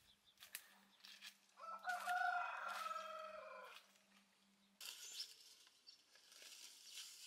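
A rooster crows once, one drawn-out call of about two seconds with a slight fall at the end. From about five seconds in, leafy mango branches rustle as they are pulled and handled.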